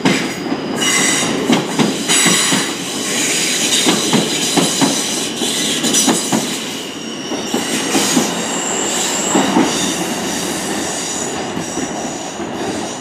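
Class 444 Siemens Desiro electric multiple unit pulling out and accelerating past. Its wheels click over the rail joints under a steady high-pitched whine, and the sound eases off near the end as the train draws away.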